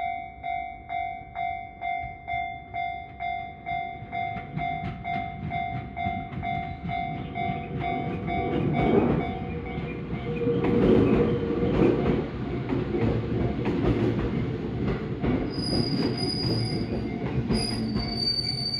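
Japanese level-crossing alarm bell ringing in an even, rapid ding at about two strokes a second. About eight seconds in, a Tsurumi Line train rolls over the crossing and drowns it out, with rumbling wheels and steady squeals of wheel against rail, the highest and shrillest near the end.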